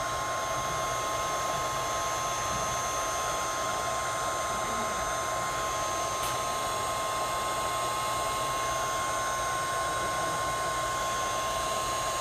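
Electric hot-air blower running steadily with a constant whine over its rushing air. It is heating a smartphone to soften the adhesive that holds the screen.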